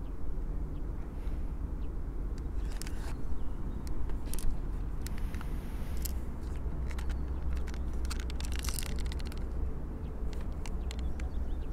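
Steady low rumble of wind buffeting the microphone, with scattered faint clicks and rustles from handling the pistol and its box.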